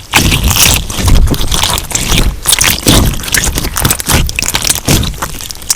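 Clear slime with crumbled melamine sponge mixed in, squeezed and kneaded by hand, giving a steady run of crunchy crackling and squishing.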